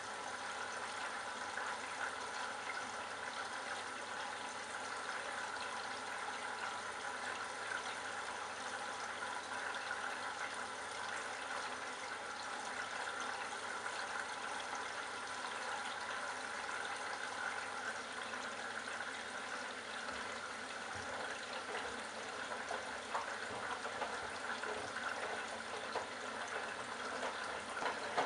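Candy Bianca washing machine taking in water: a steady rush of water running into the machine as it fills.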